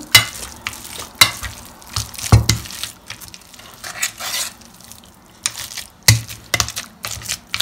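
A potato masher working minced meat with soaked bread and egg in an enamel bowl: irregular mixing strokes with sharp knocks against the bowl, a quieter stretch past the middle.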